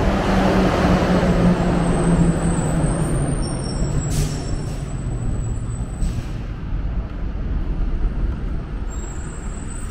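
Truck-mounted vacuum street sweeper running as it sweeps up debris, a steady low engine-and-blower drone that sags slightly in pitch over the first few seconds as it moves off. Two short hisses come about four and six seconds in.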